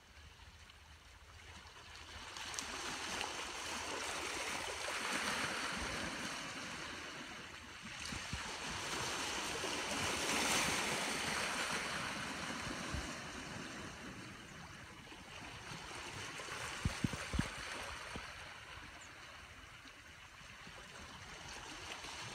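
Small sea waves washing onto the shore, the hiss of the water swelling and fading in slow surges every five seconds or so. A few brief low thumps occur about seventeen seconds in.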